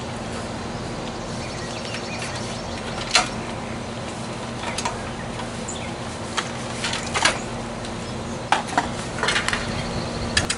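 Steady machine hum with scattered light metallic clinks and taps, the clinks coming more often near the end.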